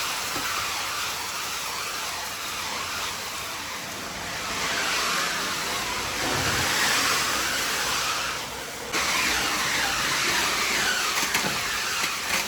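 Ice crushing machine running, with crushed ice rushing through into a fishing boat's hold in a steady, hissing rush that swells and dips and drops briefly about eight and a half seconds in.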